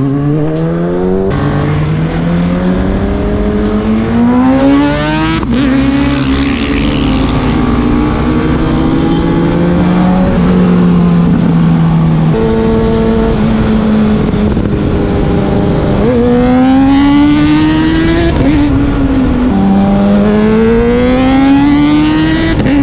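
Inline-four sport motorcycle engine pulling hard through the gears. Its pitch climbs, drops at each shift, holds steady for a stretch in the middle, then climbs twice more near the end.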